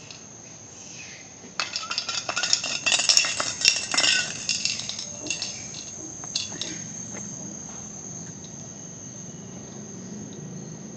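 A macaque handling a metal drink can on a stone path: rapid clinking and crinkling of the can for a few seconds, starting about a second and a half in and dying away by about the middle. Under it, a steady high-pitched drone of insects.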